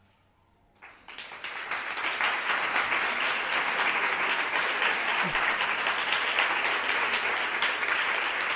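Small audience applauding. The clapping starts about a second in, builds quickly and then keeps up steadily.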